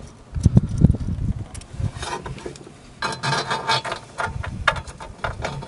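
Plastic cover being handled and fitted over a motor unit: a few dull knocks early, then irregular clattering and rubbing with sharp clicks.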